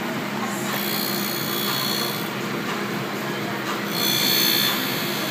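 Tool and cutter grinder running with a steady motor hum while a router bit is ground against the wheel in two passes, each a high-pitched grinding hiss of one to two seconds, the second louder.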